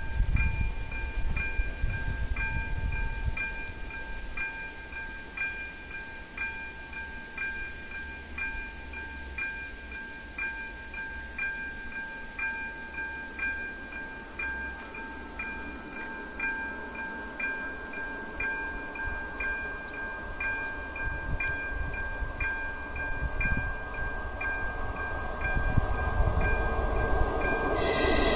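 AŽD 97 level-crossing warning signal's electronic bell (type Elektronický 02) ringing, an evenly repeated ding, while the crossing is closed for an approaching train. An approaching ČD class 814 diesel railcar rumbles louder and louder over the last seconds, ending in loud rail noise.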